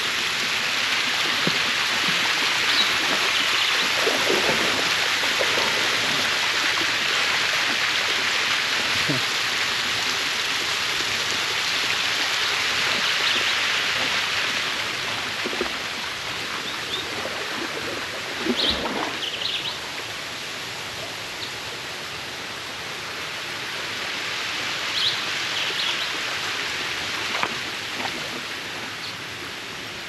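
Steady rushing of water from a waterfall and its rocky stream. It is louder in the first half and eases somewhat after about fifteen seconds, with a few faint clicks in the second half.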